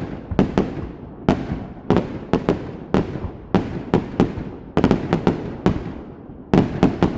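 Fireworks going off in quick succession: sharp bangs about two a second, some in close clusters, each trailing off in an echo.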